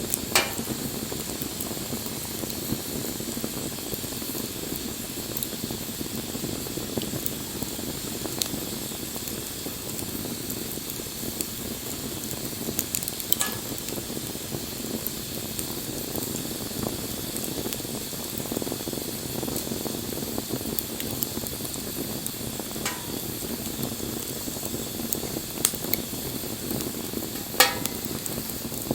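Wood fire burning with a steady crackling hiss and a few sharp pops, the loudest pop near the end.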